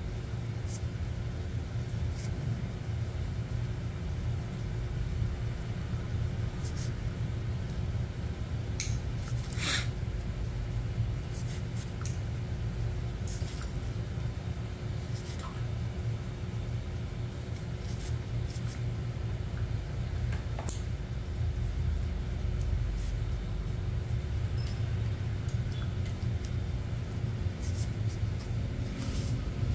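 Steel nail nipper snipping toenails: sharp, scattered clicks a few seconds apart, one loudest about ten seconds in, over a steady low rumble.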